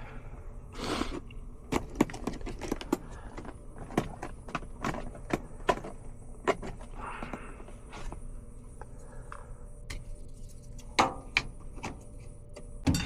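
Irregular clicks, taps and knocks of hand tools and metal parts being handled at an air handler, over a low steady background hum; the blower itself is not running.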